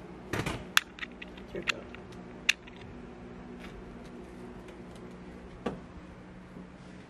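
Sharp clicks and knocks as a door and its knob are handled, most in the first two and a half seconds and one more near six seconds, over a steady low hum.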